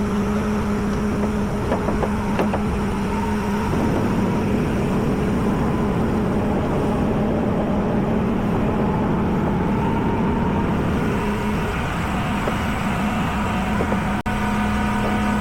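Flatbed tow truck engine running steadily, with a constant hum that changes pitch slightly about four seconds in.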